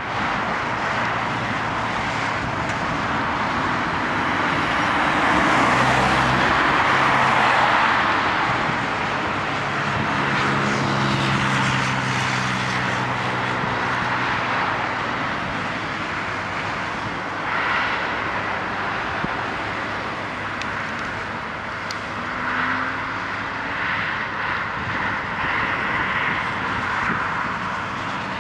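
Diesel engine of a Volvo EW140D wheeled excavator running steadily under load as it swings and lifts a flower planter. A few seconds in, a louder engine sound swells and then fades.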